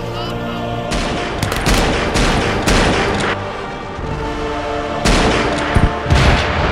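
Rifle fire in two spells of rapid shots, about a second in and again about five seconds in, over background music, with a heavier blast near the end.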